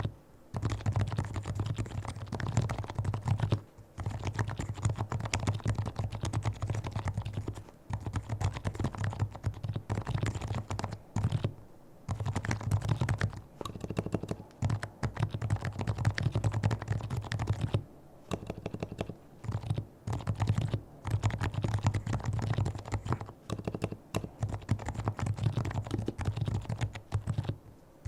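Fast, continuous typing on a Leopold FC660C keyboard with fully lubricated Topre electrostatic-capacitive switches. The rapid keystrokes are broken by brief pauses every few seconds.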